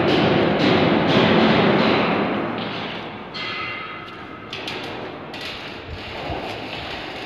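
Background music with a steady percussive beat, about two beats a second, fading out about halfway through and leaving quieter, indistinct sounds.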